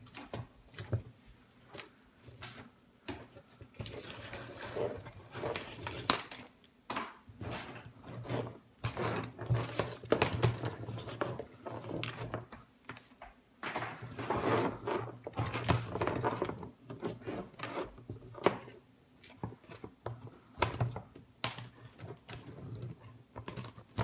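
Wires and plastic connectors of a Subaru engine wiring harness rustling and clicking as they are handled and pulled apart, in irregular bursts with sharp clicks.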